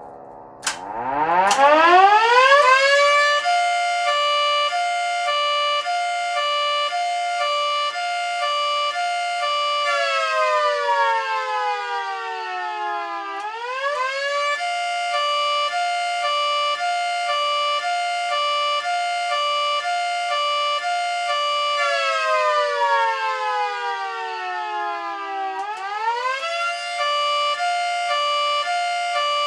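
Miniature model of a Federal Signal Thunderbolt 3T22 siren spinning up from rest to a loud, chord-like wail. At full pitch it switches rapidly back and forth between two chords in a hi-lo pattern. It twice slides down in pitch and then quickly climbs back up.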